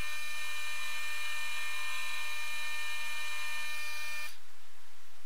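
Optimum D180x300 mini lathe running, its motor and spindle giving a steady high whine made of several tones, which cuts off about four seconds in as the lathe is switched off.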